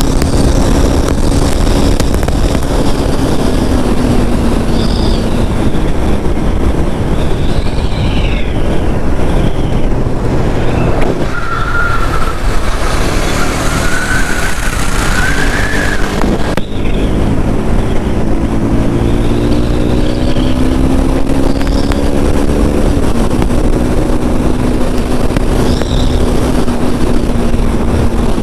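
KTM RC 390's single-cylinder engine and exhaust at highway speed, its pitch gliding up and down with throttle and gear changes, under heavy wind rush on the microphone. For a few seconds in the middle the engine note fades and a wavering higher tone rises over a louder rush.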